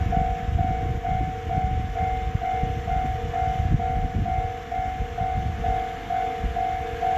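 Japanese level-crossing warning bell from a loudspeaker mounted below the flashing warning lights: an electronic two-tone alarm, a higher and a lower tone alternating evenly, each about twice a second, over a low uneven rumble.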